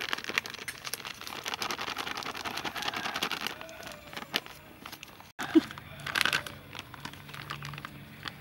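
Plastic flour packet crinkling and rustling as flour is shaken out of it into a stainless steel bowl, lasting about three and a half seconds. After a cut, a brief sharp sound, a few clicks and a low steady hum.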